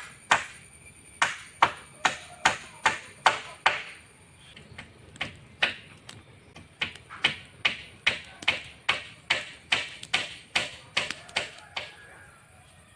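Hammer driving nails into rough wooden poles: sharp, ringing strikes about two or three a second, a gap of about a second and a half a third of the way in, then a second run that stops about a second before the end.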